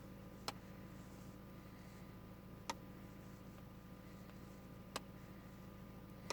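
A faint steady hum with single sharp clicks about every two seconds, four in all.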